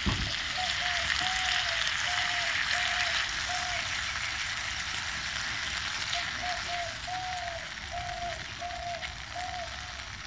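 Onion and spice masala with a little water sizzling in a nonstick frying pan while a silicone spatula stirs it. There is a knock right at the start, and a run of short, repeated tones, about two a second, over the sizzle.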